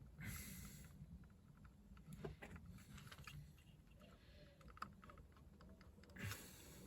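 Faint small plastic clicks and fiddling as the wiring and connector of an ignition-coil harness are worked by hand, with two short hissing bursts about a second in and near the end.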